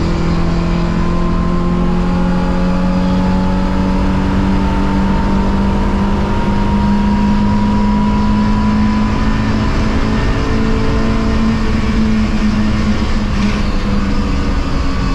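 Simca Rallye 2's four-cylinder engine pulling under full throttle, its note climbing slowly and steadily through a long gear.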